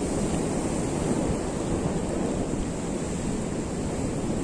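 Sea surf breaking and washing against a rocky shore in a steady wash, with wind rumbling on the microphone.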